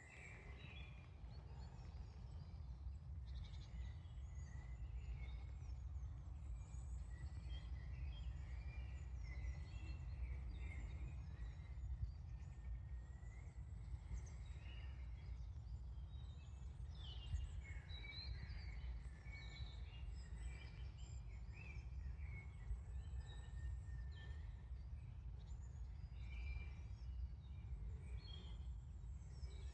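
Small birds chirping and singing, many short high notes scattered throughout, over a steady low rumble.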